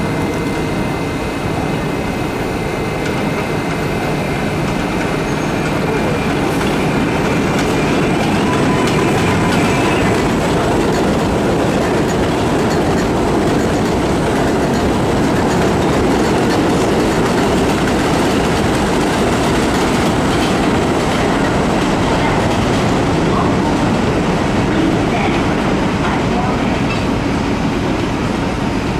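New York City Subway 7 line train running past, a loud steady rumble of wheels on rail with clickety-clack and some wheel squeal. Faint steady high tones sit over the noise, strongest in the first third.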